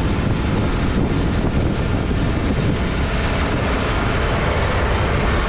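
Heavy farm machinery running steadily, a loud, even engine-and-machine noise that is strongest in the low end.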